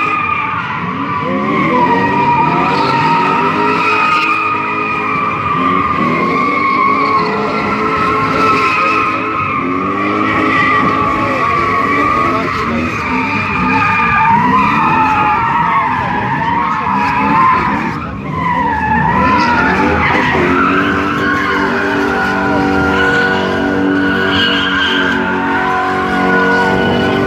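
BMW cars drifting in circles: tyres squealing in a wavering high whine while the engines rev up and down at high revs, the wheels spinning hard enough to pour out tyre smoke. The squeal briefly drops out about two-thirds of the way through, and near the end the engine note holds steadier.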